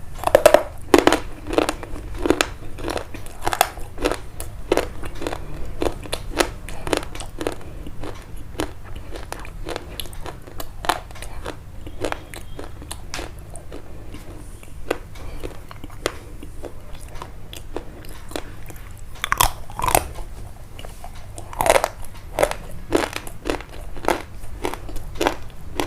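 Close-up crunching and chewing of crisp food: a steady run of short crunches a few times a second, with louder bites near the start and again about three quarters of the way through.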